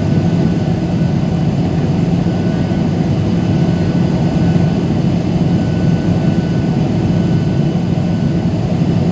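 Steady in-flight cabin noise of a jet airliner heard from a window seat over the wing: the constant sound of the turbofan engines and rushing air, heaviest in the low end, with a steady low hum and faint steady high tones.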